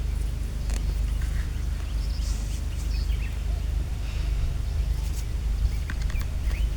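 Small birds chirping in short scattered calls over a steady low rumble, with a few brief clicks.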